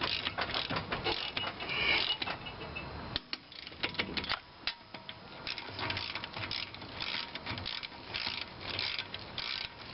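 Ratchet of a torque wrench set to 75 foot-pounds clicking in short runs of rapid clicks with brief pauses, as the wheel's lug nuts are tightened.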